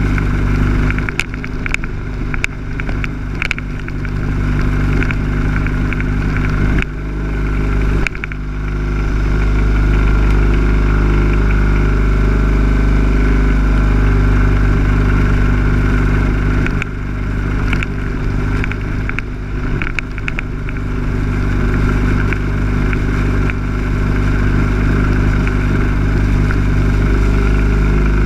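Lawn mower engine running at a steady speed, loud and heard up close. Clusters of sharp clicks and knocks come in the first few seconds and again a little past the middle.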